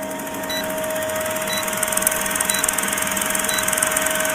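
Vintage film countdown-leader sound effect: a film projector's steady clattering run with a steady tone under it, and a short high beep about once a second as the count goes down.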